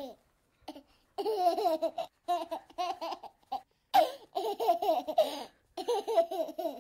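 A baby or young child laughing and babbling in short, high-pitched bursts separated by brief pauses.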